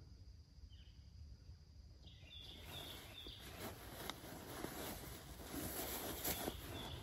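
A few faint bird chirps over quiet forest. From about two and a half seconds in, close rustling and crackling starts and grows louder: movement in dry leaf litter.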